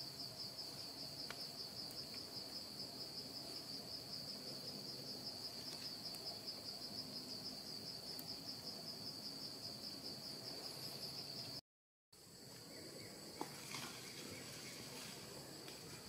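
An insect's high, steady trill, pulsing rapidly. It breaks off for a moment about twelve seconds in, then carries on fainter.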